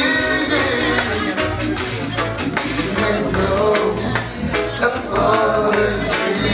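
Reggae music through a sound system, with a steady bass line and quick ticking percussion, and a voice singing over it.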